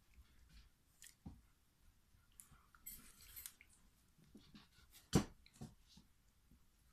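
Faint scattered rustles and small knocks from a mother dog and her three-week-old puppies shifting about on a blanket, with a brief rustle about three seconds in and one louder thump a little after five seconds.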